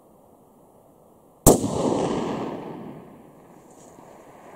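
A single rifle shot from a muzzle-braked Ruger Precision Rifle in 6.5 Creedmoor, about a second and a half in, followed by a long echo that fades over about a second and a half.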